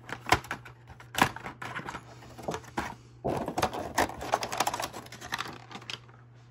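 Thin clear plastic packaging tray being handled: a few sharp clicks and knocks in the first two seconds, then about two and a half seconds of dense crinkling and crackling plastic starting a little past three seconds in.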